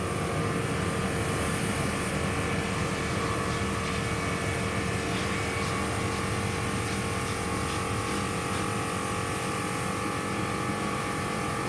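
Helicopter flying overhead, its steady rotor and engine sound mixed with a high-pressure washer running and spraying water, with a constant whine and hiss.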